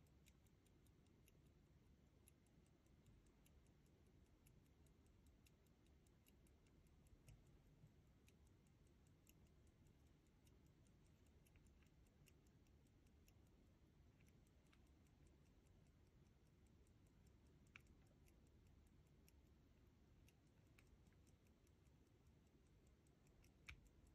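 Antique pocket watch with a ruby cylinder escapement, ticking faintly and rapidly. A couple of louder single clicks stand out, one about three-quarters of the way through and one near the end.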